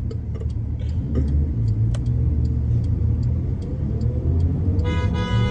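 Steady low rumble of a car heard from inside the cabin, with faint regular ticking. Near the end a car horn sounds once, briefly, from a vehicle behind.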